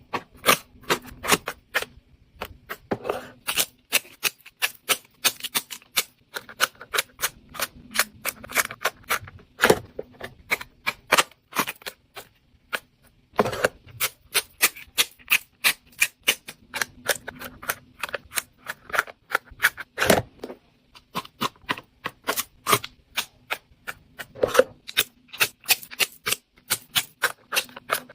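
Rapid, irregular sharp clicks and taps, several a second, over a faint steady hum.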